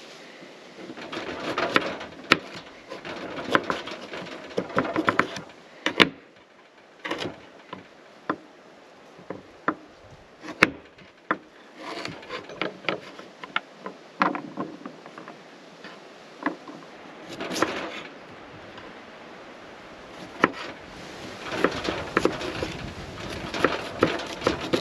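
A chef's knife slicing sweet potato on a wooden cutting board, heard as irregular sharp knocks as the blade strikes the board. For the first few seconds, a plastic bag rustles as it is rummaged.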